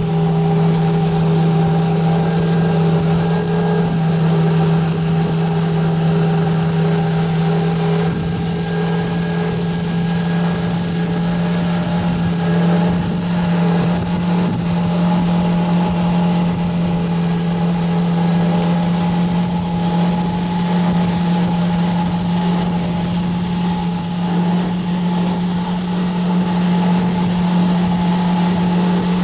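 Motorboat's outboard engine running steadily at cruising speed, a constant hum with wind and water rushing past.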